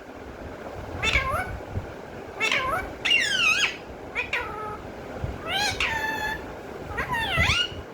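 A pet parrot calling: about six short pitched calls, each sliding up and down in pitch, spaced a second or so apart.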